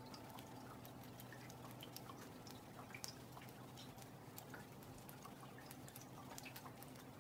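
Faint, irregular drips of light rain falling onto a still pond's surface, many small scattered drops with no steady beat.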